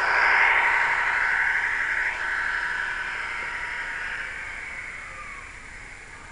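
Sound decoder in a Hornby Class 153 model DMU playing Howes diesel railcar sound through its small onboard speaker. It is loudest as the model passes close, then fades steadily as it runs away down the track.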